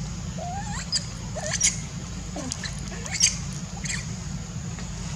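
A young macaque giving soft squeaks that glide up in pitch, with a few sharp, short chirps. They come several times over a steady low hum.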